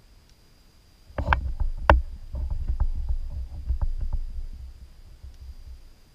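Fishing kayak getting under way: two sharp knocks on the hull about a second in, then a run of lighter clicks over a low rumble that fades over the next few seconds.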